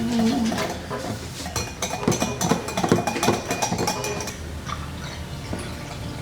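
A utensil clinking and knocking against a bowl as ingredients are mixed, with a quick run of clinks in the middle that thins out near the end.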